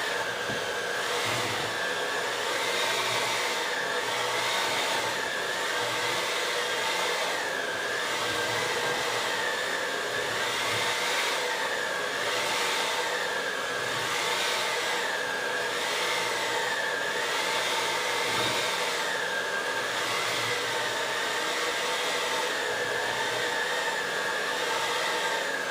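Electric hand mixer running steadily, its beaters mixing sugar cookie dough. The motor's whine rises and falls slightly about once a second or so.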